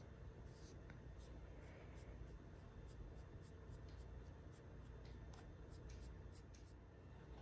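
Near silence: faint room tone with soft, irregular light ticks of fingertips tapping and sliding on a tablet screen.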